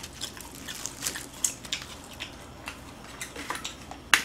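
Close-up eating sounds of crispy fried chicken: scattered crunching, wet chewing clicks and the rustle of pieces being handled, with one sharp click near the end that is the loudest sound.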